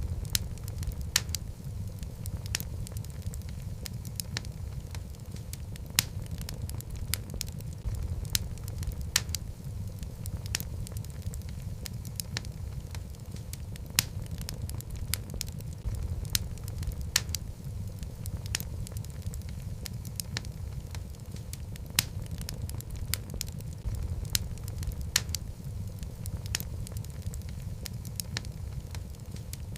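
Log fire burning in a fireplace: a steady low rumble of flame with frequent sharp crackles and pops, a few of them louder.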